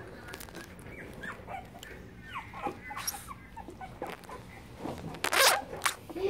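Young puppy whimpering in short, faint squeaks, with a brief scraping rasp about five seconds in that is the loudest sound.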